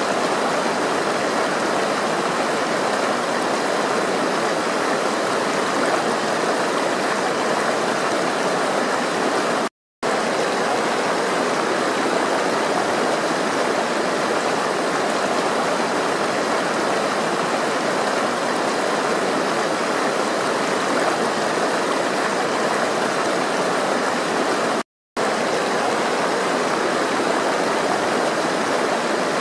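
Flowing water rushing steadily, like a stream, with two brief cuts to silence about ten and twenty-five seconds in.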